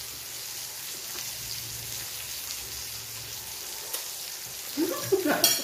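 Steady, faint crackling sizzle from food on an electric tabletop grill plate. Near the end come a brief hum of a voice and a sharp click.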